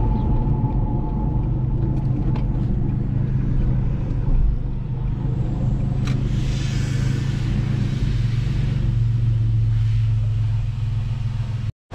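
Car engine running at low, steady revs, heard from inside the cabin as the car moves slowly, with a brief hiss about six seconds in.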